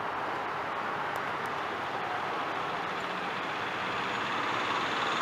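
Road traffic: cars and a small truck driving along the road toward the microphone, a steady hum of engines and tyres that grows gradually louder toward the end.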